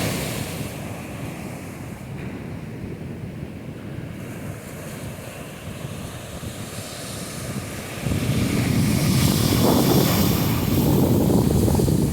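Atlantic surf washing on the beach, mixed with wind on the microphone. About eight seconds in, a louder, deeper rumble sets in and holds.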